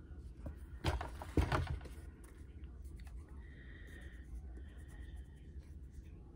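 Handling noise from a cardboard-cased eyeshadow palette: a short rustle and scrape with a knock about a second in, over a low background hum.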